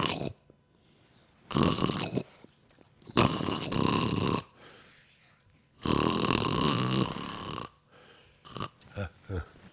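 A person snoring: three loud snores about two seconds apart, each longer than the last, with quiet gaps between, then a few short broken sounds near the end.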